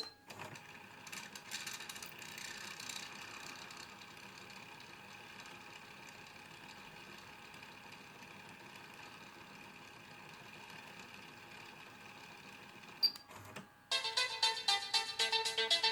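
Music from a car stereo's speakers cuts off suddenly. A faint steady hiss follows, with a few clicks near the start and one sharp click about 13 seconds in. A jingle of quick electronic beeps then starts near the end.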